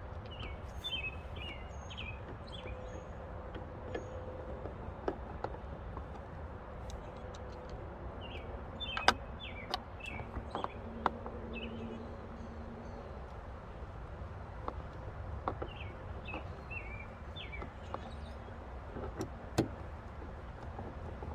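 Scattered light clicks and knocks of a screwdriver and T25 screws being worked into a car door panel. Birds chirp in three short bursts in the background.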